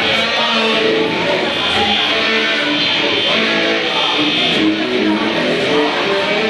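SG-style solid-body electric guitar played through an amplifier, a lead line of held notes changing pitch every half second or so.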